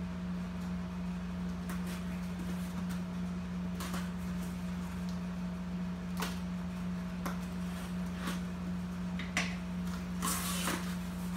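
A small cardboard box being opened by hand: a blade scraping and slitting the packing tape, with scattered taps and scratches, then a louder rustle of cardboard flaps being pulled apart about ten seconds in. A steady low hum sits underneath.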